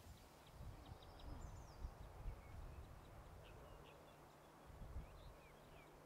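Faint, scattered high chirps and short slurred call notes of small songbirds over a low background rumble.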